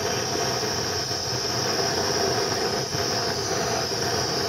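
Gas-canister blowtorch burning with a steady hiss, its flame played into the crankshaft's spigot bearing bore to warm it before a new spigot bush is fitted.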